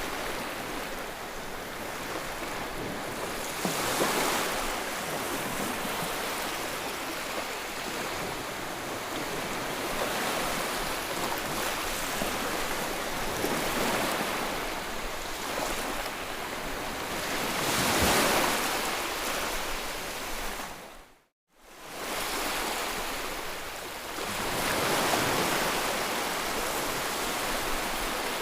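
White-noise track: a steady, full-range rushing hiss that swells and ebbs every few seconds. About three quarters of the way through it dips to silence for a moment, then fades straight back in.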